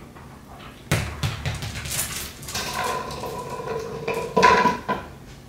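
Household clatter: a run of knocks and clinks, like dishes and utensils being handled, starting suddenly about a second in. A steady pitched sound joins from about halfway and is loudest near the end.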